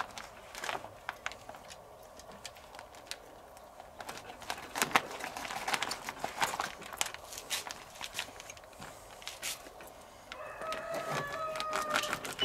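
Plastic packaging crinkling and clicking as a knife slits a vacuum-sealed bag of marinated spare ribs and metal grill tongs pull the ribs out. The clicks are busiest in the middle. In the last two seconds a drawn-out pitched call sounds in the background.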